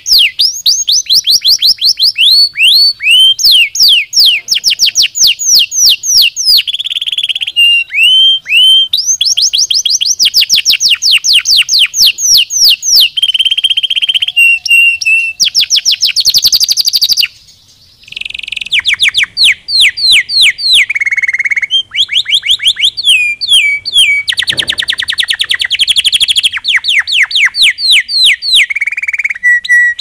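Domestic canary singing: fast trills of many quickly repeated high notes, moving from one phrase to the next, with a few held whistled notes and one brief pause a little past halfway.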